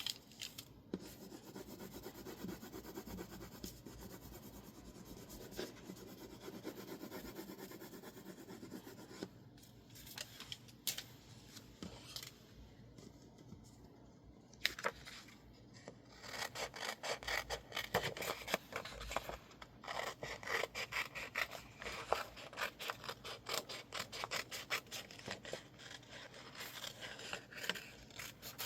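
Paper rubbing and sliding for several seconds, then from about halfway a quick, steady run of crisp snips: scissors cutting masking-tape illustrations stuck on label paper into stickers.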